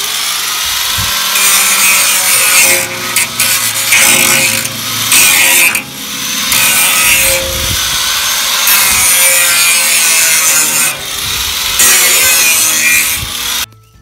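Electric angle grinder grinding down the sharp cut edge of a steel oil-tank section, a loud continuous grinding that dips briefly a few times as the disc comes off and back onto the metal. It cuts off abruptly just before the end.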